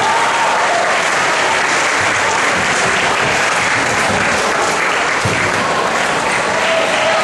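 A crowd of spectators applauding steadily, with a few shouts at the start and near the end.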